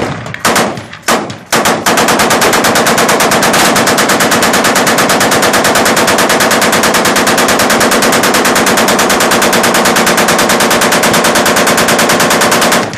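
A fully automatic machine gun firing a few single shots and short bursts, then one long continuous burst of about ten seconds that cuts off near the end.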